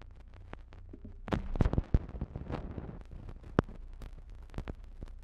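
Surface noise of an old radio transcription recording: scattered crackles and pops over a steady low hum. A louder burst of crackle and rumble comes about a second and a half in.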